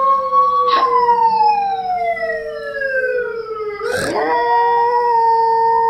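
Electronic tones: two steady pitches, with one sliding slowly downward over about three seconds, broken by a click about a second in and a sharp click near the four-second mark, after which the steady tones resume.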